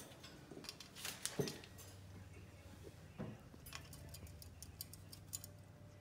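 Faint scattered clicks and taps from a Quaker parrot moving about its wire cage at its plastic water bowl, with two louder knocks about one and three seconds in and a quick run of ticks later on. A low steady hum runs underneath.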